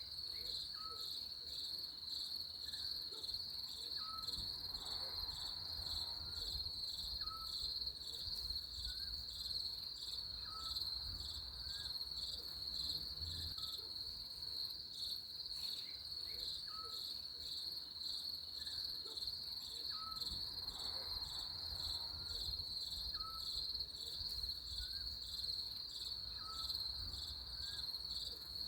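Crickets chirping in a steady, high, pulsing trill. A faint short note repeats about every second and a half behind it.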